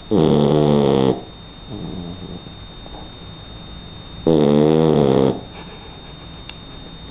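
Three-month-old Shar Pei puppy snoring in its sleep: two loud snores about four seconds apart, each lasting about a second, with a softer snore shortly after the first.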